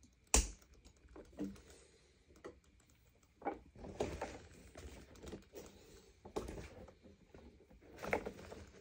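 Handling noise as the power cord of a Sanitaire SL635B upright vacuum is wound onto the handle's cord hooks. One sharp click comes just after the start, then scattered light clicks, knocks and rustles, busiest through the second half.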